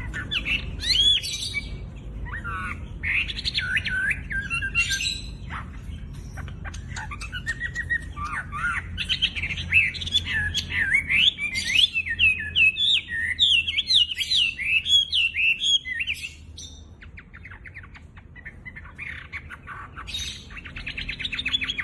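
A wambi songbird singing loudly in long, varied whistled phrases: quick notes that swoop up and down. The phrases pack into a fast run around the middle, drop to a softer rapid chatter, then pick up again near the end. It is a bird in full song, its phrases laced with calls copied from other birds.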